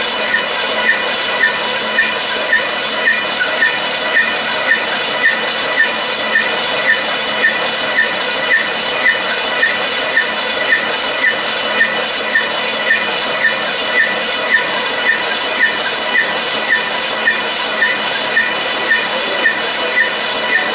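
A machine running steadily: a loud, even hiss with a faint, regular tick about twice a second.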